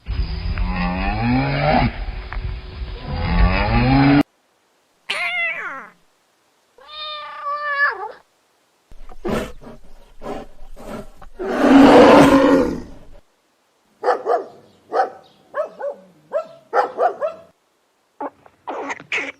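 A string of different animal calls, one clip after another, each starting and stopping abruptly. A long loud call opens it, followed by several shorter calls and a rapid run of short cries near the end.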